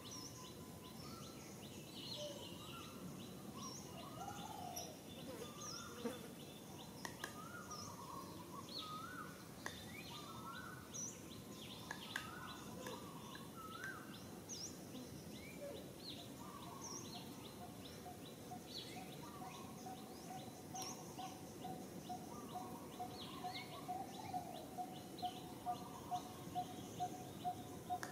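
Many birds chirping over a low background hiss. About two-thirds of the way in, a steady repeated note joins them, about twice a second, growing stronger near the end.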